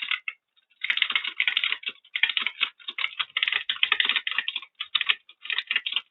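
Very fast typing on a computer keyboard during a speed test: a dense, nearly continuous run of key clicks that starts about a second in and breaks off briefly a few times.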